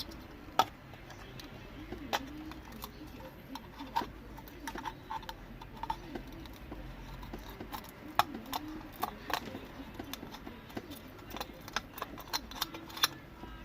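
Irregular sharp clicks and taps of small hard parts being handled, several loud ones among many lighter ones. A low cooing sound, like a dove's, recurs in the background.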